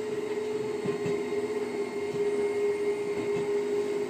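Echizen Railway electric train running, heard from inside the cab: a steady hum with one constant tone over a low rumble, and irregular knocks from the wheels on the rails.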